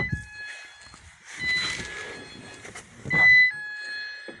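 A van's dashboard warning chime sounding as a held high tone that switches back and forth between two pitches. Rustling and knocking come in around it, loudest about three seconds in, as someone gets into the driver's seat.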